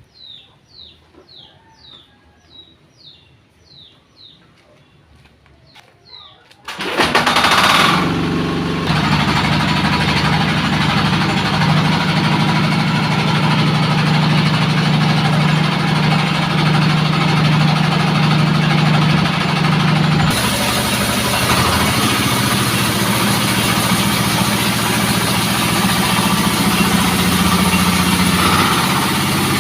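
A bird chirping repeatedly, about twice a second; about seven seconds in, the engine of a horizontal wood sawmill starts and runs steadily. Around twenty seconds in its sound changes, with more hiss.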